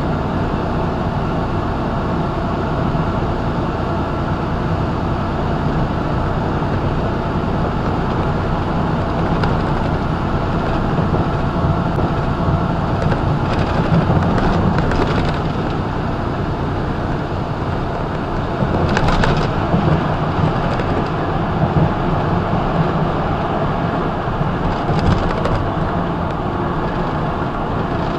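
Semi truck running at highway speed, heard from inside the cab: a steady engine drone under tyre and road noise, swelling a little about halfway through and again later, with a few brief rattles.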